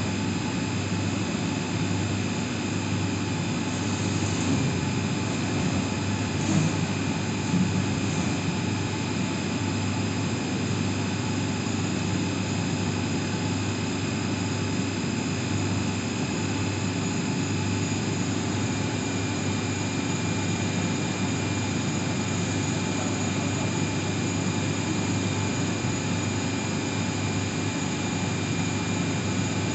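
Steady drone of running HVAC plant-room machinery (chiller and condenser-water pumps), a constant low hum with a thin high whine over it. A couple of light knocks sound a few seconds in.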